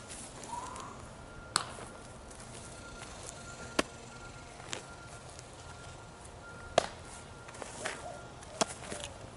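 Baseball smacking into a leather glove during a game of catch, about four sharp smacks spread over several seconds.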